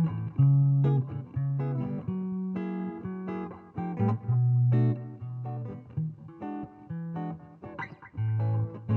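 Guitar playing a picked melody of single notes and short chords, with some notes left ringing.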